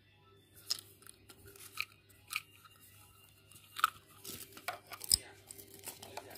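Irregular sharp plastic clicks and small knocks from handling a flip-top plastic test-strip vial, snapping its lid shut and setting it into a fabric meter case, with a quick run of clicks near the end.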